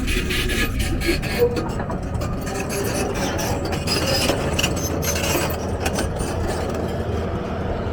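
Steady low engine rumble under loud, even street and site noise.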